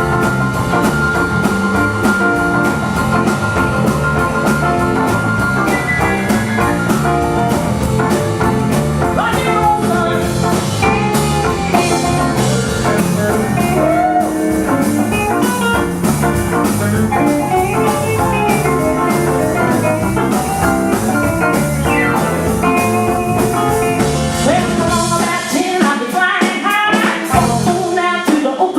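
Live rock and roll band playing an instrumental passage with drum kit and guitar, driving and steady; near the end the low end of the band drops out for a few seconds.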